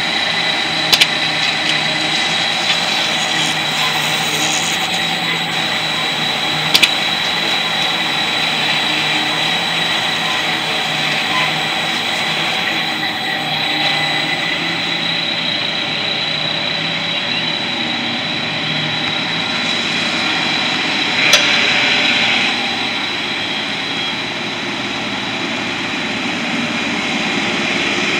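Krones tray loader and shrink-wrapper running: a steady industrial machine noise with a constant high whine, broken by a few sharp clacks, about a second in, about seven seconds in, and about twenty-one seconds in.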